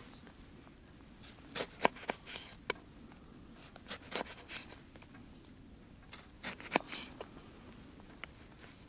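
A small knife slicing a lemon on a wooden cutting board: a scattered series of short, sharp knocks and clicks as the blade cuts through the fruit and meets the board, the loudest about two seconds in and again near seven seconds.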